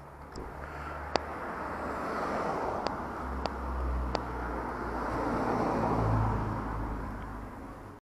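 A car passing by on the street: its engine hum and tyre noise swell to a peak about six seconds in, then fade. A few sharp clicks sound in the first four seconds.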